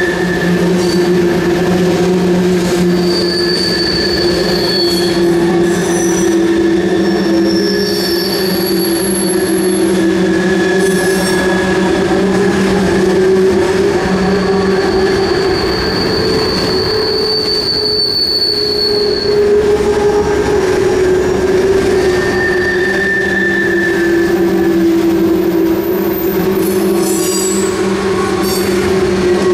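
A CN freight train of tank cars and covered hoppers rolling past on steel rails with a continuous rumble. The wheels squeal on and off in thin, high-pitched tones every few seconds.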